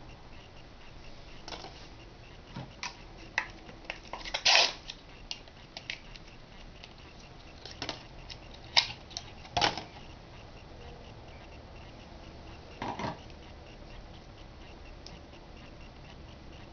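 Small plastic clicks, snaps and taps from hands handling the parts of a Betaseron injection kit: the clear plastic vial adapter, syringe and packaging. They come in scattered groups, the loudest snaps about four and a half and nine and a half seconds in, with a short cluster near thirteen seconds.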